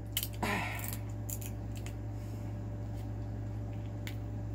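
Scissors snipping through a boiled crab's shell: a couple of sharp snips, a louder cracking crunch about half a second in, then scattered single clicks as the blades work the shell open.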